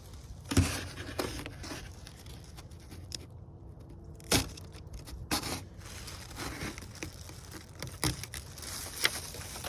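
Scattered knocks and light scrapes from handling a remote-control boat while setting it up: a few sharper knocks, the clearest about half a second in and just past four seconds in, with quieter rubbing and rustling between them.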